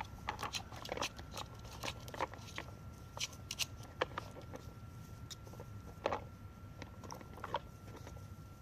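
A sheltie puppy working a plastic treat puzzle toy: irregular sharp clicks and crunches as it noses and paws the puzzle and chews the treats it finds.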